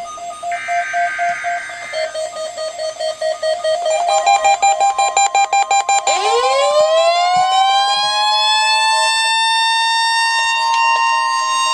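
Electronic alarm and siren tones: a pulsing beep that quickens, then a siren winding up in pitch about six seconds in and levelling off, sounding together with a steady tone.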